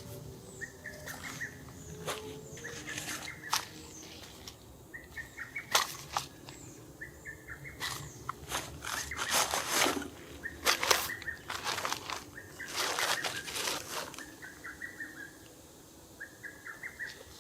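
A bird repeating a short, rapid trill over and over, with sharp clicks and rustles in between.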